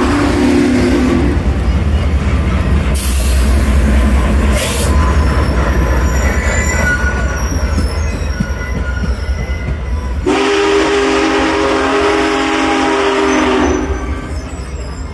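Union Pacific 4014 "Big Boy" steam locomotive and its train rolling by with a heavy low rumble and two short hisses. Its chime whistle ends about a second in and sounds again in one long blast of several tones, from about ten seconds in to nearly fourteen.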